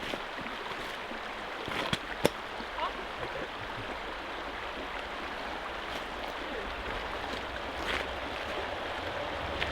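River water flowing steadily, with a couple of sharp clicks about two seconds in.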